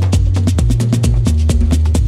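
Live band music: a hand drum struck in a fast, even rhythm, about eight strokes a second, over a steady low bass.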